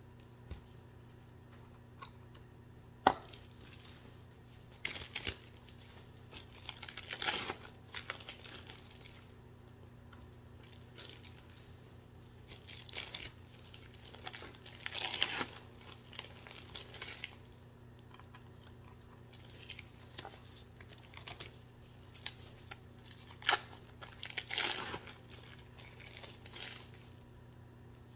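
Intermittent crinkling and rustling as cheese slices are handled and laid over a casserole in a disposable aluminum pan, with a couple of sharp clicks. A faint steady hum runs underneath.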